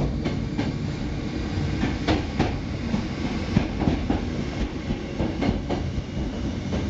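Hakone Tozan Railway electric train running on its track, a steady low rumble with irregular sharp clicks from the wheels over the rail joints, heard from inside the cab.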